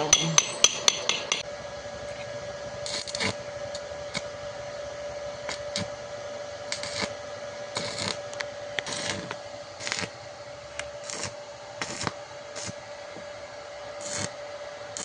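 A hammer striking metal: about six quick ringing clangs in the first second and a half, then a dozen shorter, duller scraping strokes at uneven intervals.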